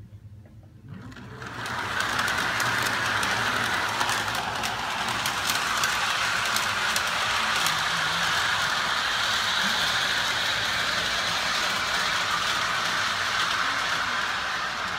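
Lionel O-gauge M7 subway train running on FasTrack: a steady rush of motor and wheels with scattered clicks from the track, coming up about a second in.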